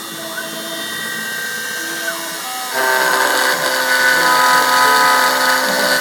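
CNC milling machine running, its motors whining in several steady tones that jump to new pitches every second or so and get louder about three seconds in.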